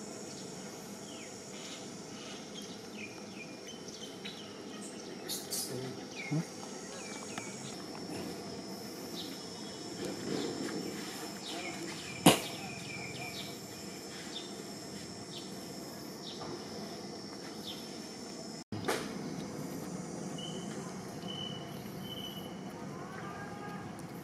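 Outdoor forest ambience: a steady high insect drone with scattered short bird chirps. One sharp click sounds about twelve seconds in, and the sound drops out for an instant near nineteen seconds.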